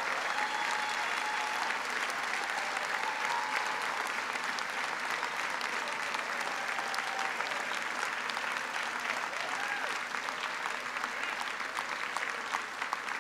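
Audience applauding at length, the clapping slowly dying down toward the end.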